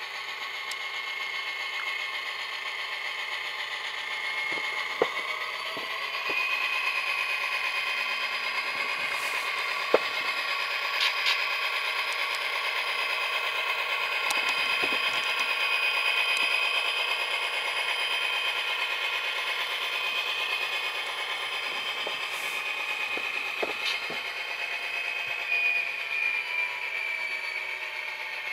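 Tsunami sound decoder in a model SD26 diesel locomotive playing an EMD 567D prime mover through its small onboard speaker as the model runs, with several held high tones and almost no bass. A few sharp clicks stand out over it.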